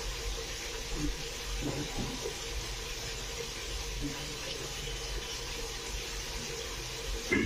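Chicken pieces frying in hot oil in an aluminium pressure cooker, a steady sizzling hiss with no stirring.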